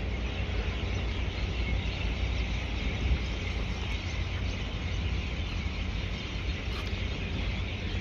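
Steady outdoor background noise: a low rumble under an even, high hiss, with no distinct events.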